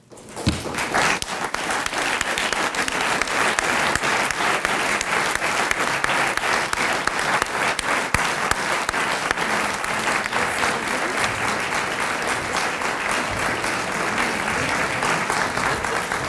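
Audience applauding: many people clapping at once, breaking out suddenly and holding steady.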